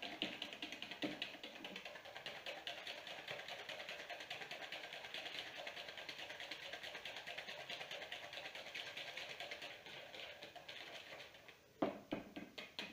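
Wire hand whisk beating egg yolks and sugar in a bowl, its wires clicking rapidly and steadily against the bowl's sides. The whisking stops a second or so before the end, followed by a couple of sharper knocks.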